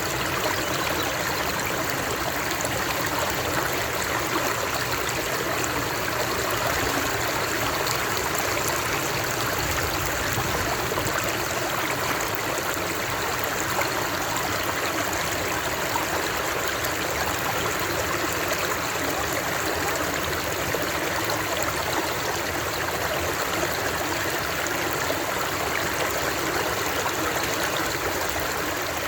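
Flowing water, a stream running over rocks with a steady rushing and light trickling, unchanging throughout.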